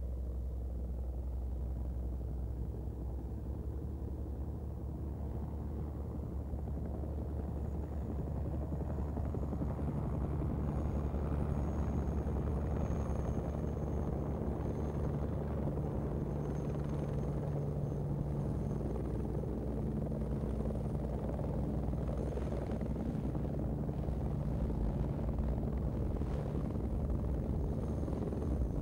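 Helicopter flying low and coming in to a hover: a steady rotor chop and engine rumble, a little louder from about ten seconds in, with a faint thin high whine above it.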